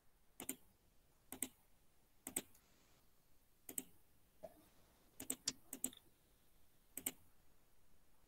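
Faint computer mouse clicks: about ten short, sharp clicks spread irregularly over several seconds, several of them coming in quick pairs.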